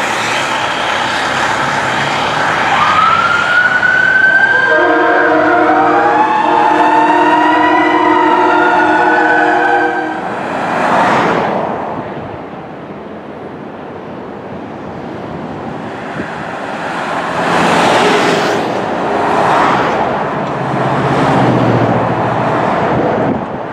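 Fire engine's siren wailing up and down as it pulls away, with a horn sounding a steady chord for about five seconds over it; from about ten seconds in, vehicles rush past in several swells of road noise.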